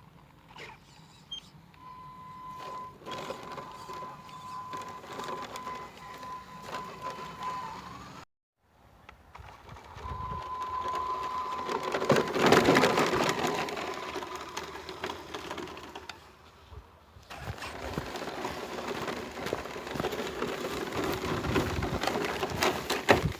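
Stock brushless ECX Torment short-course RC truck driving off-road: a steady high electric motor whine that rises briefly near 8 s, over the crunching, clicking and rattling of tyres and chassis on rough ground. The sound cuts out briefly at an edit and is loudest about midway.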